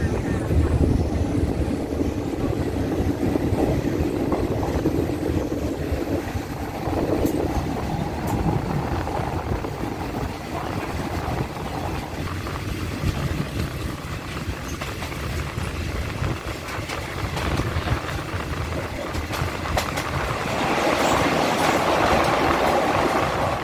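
Passenger train pulling out of a station, heard from inside a carriage: a steady rumble of wheels on rail with scattered clicks. Near the end it grows louder and brighter as the train rolls onto a steel truss bridge.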